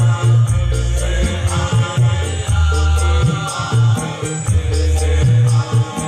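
Men's choir singing together over musical accompaniment, with deep bass notes and a quick, steady high percussion tick.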